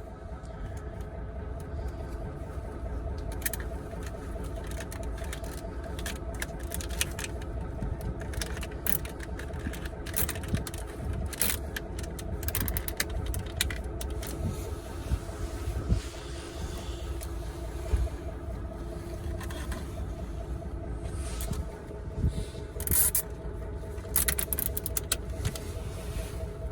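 Heavy truck's diesel engine running steadily, with scattered clicks and knocks from hand work on the truck.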